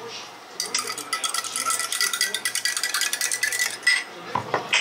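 A long metal stirrer whisked rapidly around a drinking glass, clinking fast against the glass for about three seconds while the glass rings faintly. A few single knocks follow near the end.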